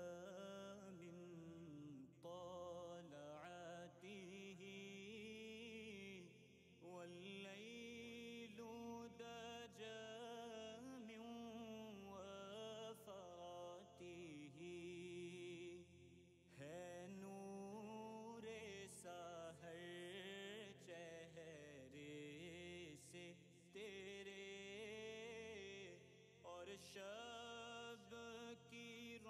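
Quiet background music: a voice chanting a melody.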